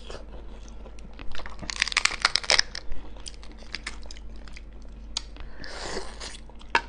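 Cooked lobster shell being cracked and peeled apart by hand close to the microphone: a dense run of crisp cracks and crackles from about one to three seconds in, then scattered clicks, with biting into the lobster meat near the end.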